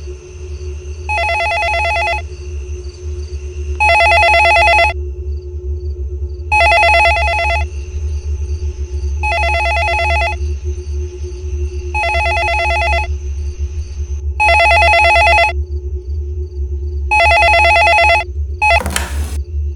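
A telephone ringing: seven rings of about a second each, about every two and a half seconds, over a steady low hum. A brief swish cuts in near the end.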